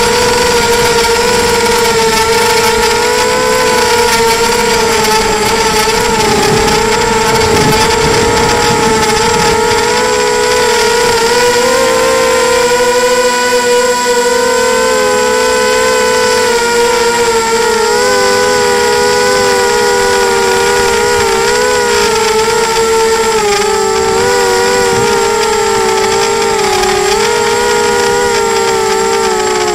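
A small FPV quadcopter's electric motors and propellers whining in steady flight, as heard from the onboard camera. Several close tones waver slowly up and down with the throttle.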